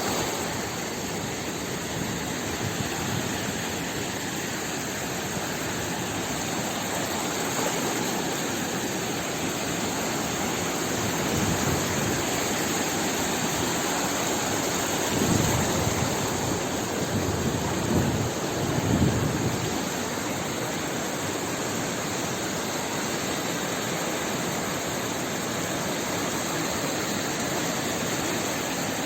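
Sea ambience: a steady, even rush of water noise, with a few louder, deeper surges a little past the middle.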